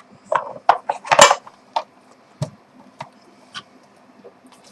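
Hard parts of a soldering-iron stand clattering and clicking as they are handled and fitted together: a short rattling burst about a second in, then a few single clicks.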